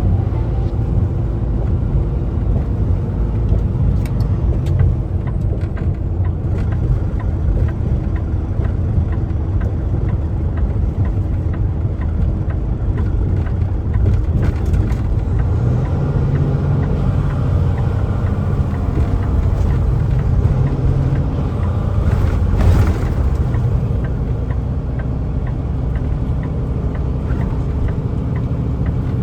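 Kenworth semi-truck driving: a steady low engine drone and road rumble heard from inside the cab. There is a brief louder noise about three-quarters of the way through.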